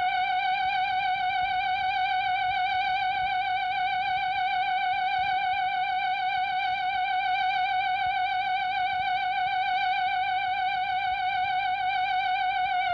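Flying-saucer sound effect: a steady electronic warbling tone, theremin-like, held on one pitch with a fast even wobble and sinking very slightly lower.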